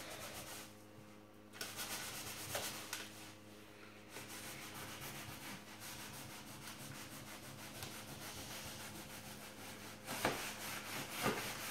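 A cloth rubbed back and forth over a vinyl wall decal's transfer film, pressing it onto the wall so no air bubbles stay under it: a dry, scratchy rubbing in quick strokes, with a brief pause about a second in.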